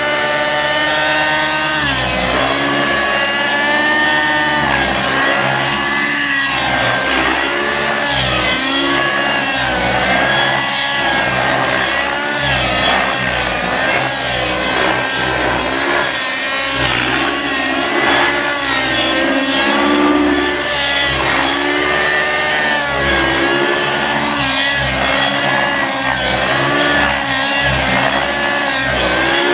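Aeolus 50 nitro RC helicopter's two-stroke glow engine and rotor, flying in aerobatics, its pitch held briefly, then dropping about two seconds in and rising and falling continually as the load changes.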